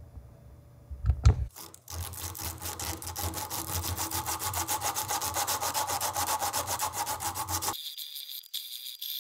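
A strip of abrasive cloth pulled quickly back and forth across a wood-and-resin knife handle, hand sanding in fast, even rasping strokes that cut off suddenly near the end. A low thump comes about a second in.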